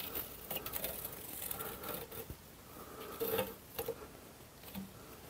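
Old fibreglass rope gasket being peeled off a wood stove door, making faint, irregular scratching and crackling as it tears away from its adhesive.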